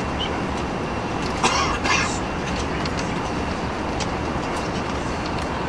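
Steady rush of airflow and engine noise inside an Airbus A380-800 cabin, with the wing flaps extended. Scattered small rattles, and two short louder bursts of noise about one and a half to two seconds in.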